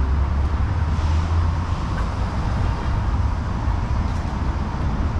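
Steady urban traffic noise, an even hiss over a deep low rumble.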